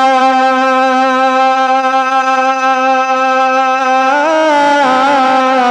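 A man singing a Bengali gojol (Islamic devotional song) into a microphone. He holds one long, steady note for about four seconds, then moves into a wavering, ornamented run of pitch near the end.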